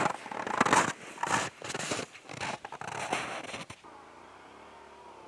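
Footsteps crunching in dry snow close by, an irregular run of crunches that stops suddenly about two-thirds of the way through as the walker kneels down.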